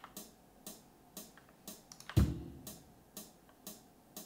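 A sampled drum loop from a software drum machine: a hi-hat ticking on every beat, about two a second, with one kick drum, the loudest hit, about two seconds in. The kick comes only every seventh beat, so the loop runs on a seven-beat cycle instead of eight.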